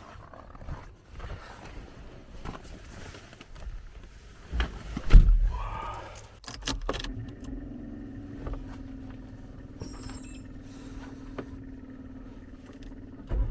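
Keys jangling and handling noises inside a car, with a heavy thump about five seconds in, then a steady low hum from about seven seconds in.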